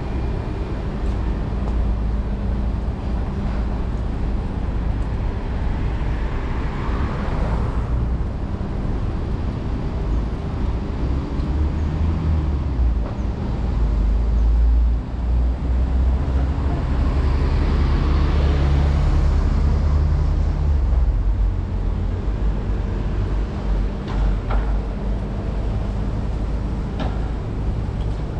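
Road traffic under a steady low rumble. Vehicles pass twice, once about a quarter of the way in and again for several seconds past the middle, the second pass bringing a heavier low engine drone.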